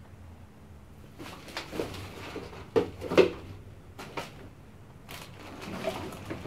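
A plastic trash bag rustling and crinkling as it is poked and dragged with a metal pole across a rusty steel dumpster floor, with irregular scrapes and knocks. The loudest knocks come about three seconds in.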